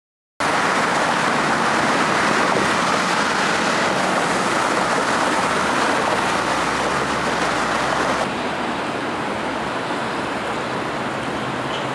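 Steady road traffic noise, a dense rush of passing vehicles, starting abruptly about half a second in and dropping slightly in level about eight seconds in.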